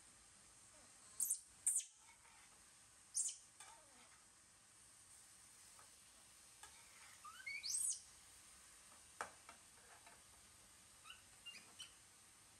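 Several brief, high-pitched animal chirps spaced a few seconds apart, some rising in pitch, with a single light tap about nine seconds in.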